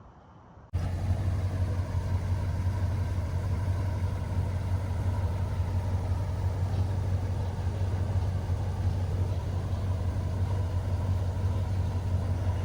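1978 Ford Country Squire's 351 V8 running steadily with a deep, even rumble, coming in abruptly under a second in.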